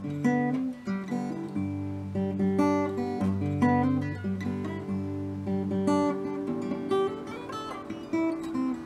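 Acoustic guitar played solo: a melody of quickly picked single notes over lower bass notes that are left to ring.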